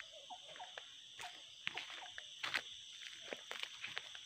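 Footsteps on dry leaves and bare ground, a string of short crunches and clicks, over a steady high-pitched drone of forest insects, with a few short animal calls.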